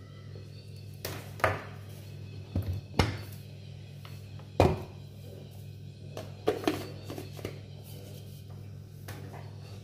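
Sharp plastic knocks and clicks, about half a dozen spread over several seconds, as the white plastic parts of a Philips hand blender are handled and put together, over a low steady hum and background music.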